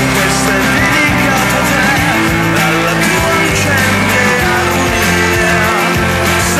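Rock music with guitar and a singing voice, loud and continuous.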